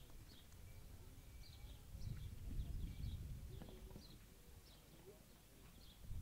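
A horse's hooves thudding on the sand arena at the canter and over a jump, while a small bird chirps over and over in short falling notes.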